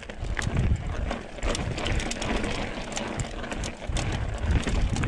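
Trek Remedy 8 mountain bike rolling down over bare rock: the tyres rumble on the stone in a way that sounds as if they are flat, with frequent sharp clicks and knocks as the bike rattles over bumps. Low wind rumble on the helmet-mounted microphone runs under it.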